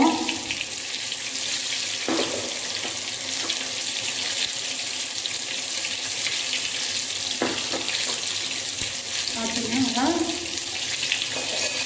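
Hot oil sizzling steadily around maida-coated chicken drumsticks deep-frying in a steel pan, just after the pieces have gone in, with a couple of faint pops.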